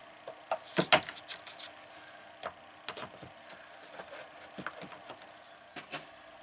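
Scattered light knocks and clicks from a cabinet door and its metal hinges bumping against the cabinet frame while the door is held up and positioned for a test fit. The loudest pair of knocks comes about a second in.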